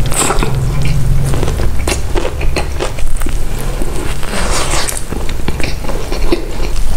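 Close-miked eating: wet chewing and biting with many short crunchy crackles, the loudest burst of crunching about four and a half seconds in.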